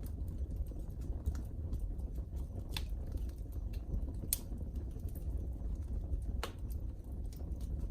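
Wood fire in a fireplace crackling, with irregular sharp pops over a low steady rumble of the flames. A few louder pops stand out, the strongest a little past halfway.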